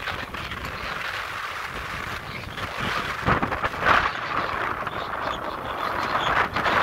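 Wind buffeting the microphone over the rushing hiss of a sailboat under way at hull speed, swelling in gusts and growing louder about halfway through.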